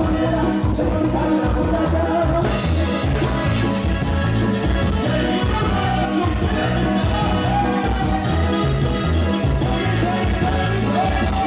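Loud dance music with a steady, pulsing bass beat.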